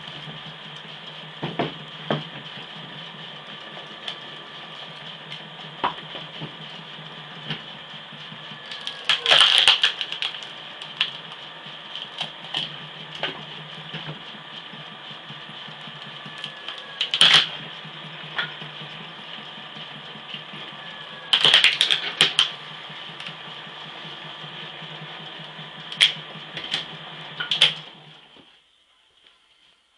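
Homemade cone log splitter, a threaded steel cone turned by a 0.75 kW three-phase electric motor through a 1:3 gear, running with a steady hum and whine. Wood pressed onto the cone cracks and splits in about five loud, sharp bursts, the machine's pitch dropping briefly as it bites. The running sound stops shortly before the end.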